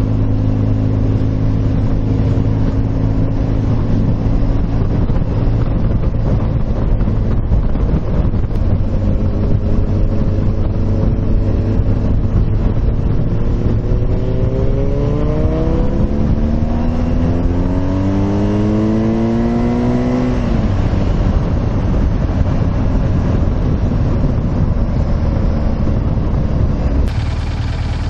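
Motorcycle engine running under a steady rush of wind noise, then pulling harder, its pitch rising steadily for about six seconds before dropping off suddenly.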